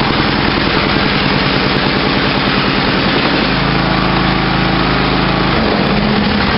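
Craftsman riding lawn mower's engine running just after a cold start, its note shifting about three and a half seconds in and again near the end.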